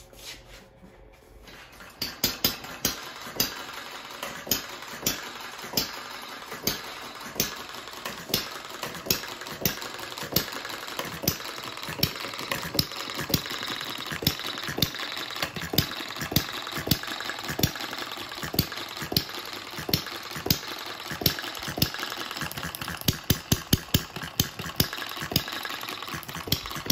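Model hit-and-miss engine (Duclos 'Odds 'n Ends' design) starting about two seconds in and then running: sharp firing pops less than a second apart as it fires and coasts between firings, over a steady mechanical clatter. Near the end it fires several times in quick succession.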